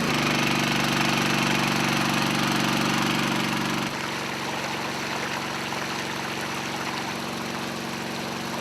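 Small engine of a Dayliff engine-driven water pump running steadily after its pull start; about four seconds in it drops suddenly to a lower, quieter speed, as the choke is released and the throttle is set to the running speed.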